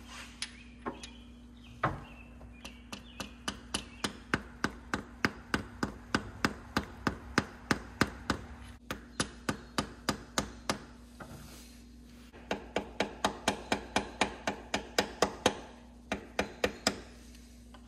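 A wooden-handled mallet tapping a new cam seal into the front of an RB25DET cylinder head. The sharp, even knocks come about three a second in two runs, with a short pause between them.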